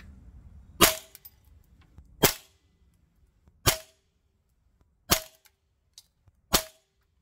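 Cyma/T8 DDM4 PDW gas blowback airsoft rifle firing five loud single shots about a second and a half apart. Each shot clocks about 343–345 fps with the Guns Modify magazine.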